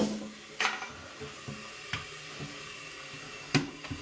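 Several sharp knocks and clicks, the loudest right at the start and another about three and a half seconds in, over a faint steady hiss.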